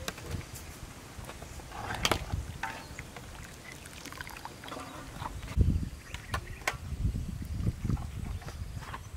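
Broth sloshing and dripping as boiled pork bones are lifted out of a wok with a wire-mesh skimmer, with a few sharp knocks of the utensils against the pot.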